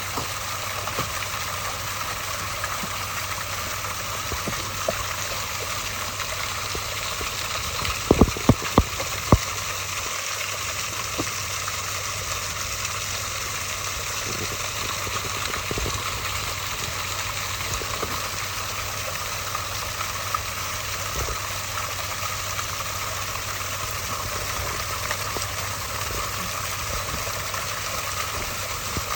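Waterfall rushing steadily, with a few sharp knocks close together about eight seconds in.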